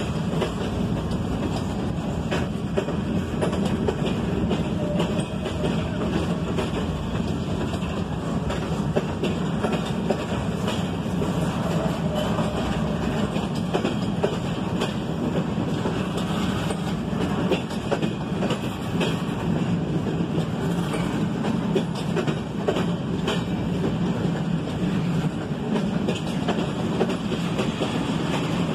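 Freight train of double-stack intermodal well cars rolling past: a steady noise of steel wheels on rail, dotted with irregular clicks and knocks from the wheels and couplers.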